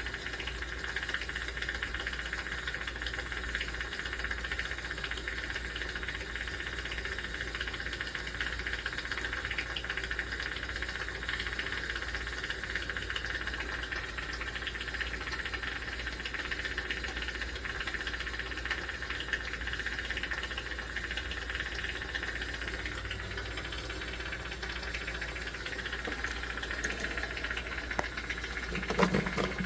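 Jeweler's soldering torch flame hissing steadily while solder is melted into a hollow gold chain link.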